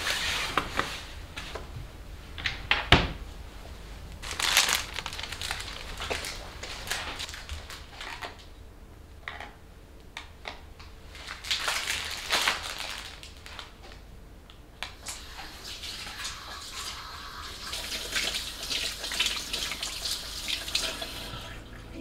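Household handling noises: scattered knocks, clicks and rustles, with a sharp knock about three seconds in. Near the end a kitchen tap runs and hands are rinsed under it.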